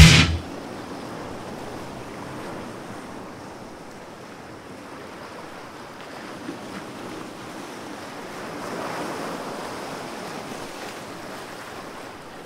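Loud rock music cuts off abruptly at the start, leaving the steady wash of ocean surf on a shore, which swells gently and eases off again later on.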